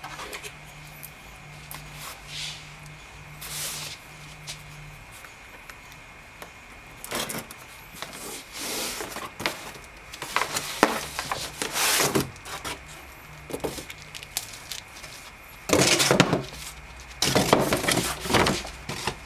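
Cardboard shipping box being opened and handled by hand: scattered scrapes, rips and rustles of cardboard flaps and tape, with the loudest, busiest handling noises in the last few seconds.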